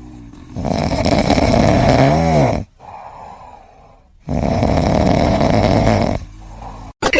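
A sleeping pet snoring: two long, loud snores of about two seconds each, with a quieter breath between them and a short wavering tone near the end of the first.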